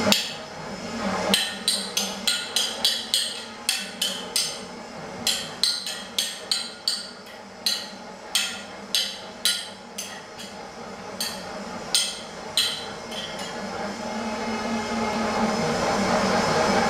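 Short sticks clacking against each other in quick sparring exchanges, a run of sharp knocks at about two a second that stops after about 13 seconds. A steady rushing noise swells near the end.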